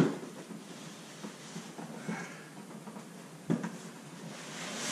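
Cardboard packing rustling and scraping as items are worked out of a shipping box by hand, with a sharp knock at the start and another about three and a half seconds in.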